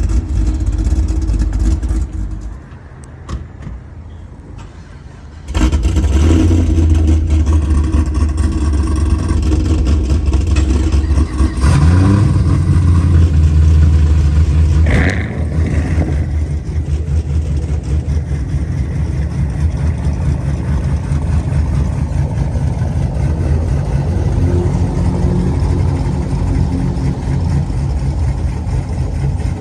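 Loud V8 car engine and exhaust running, with a few quieter seconds near the start, then revving up about twelve seconds in and running hard for a few seconds, with a short high tone near the end of that push before it settles back to steady running.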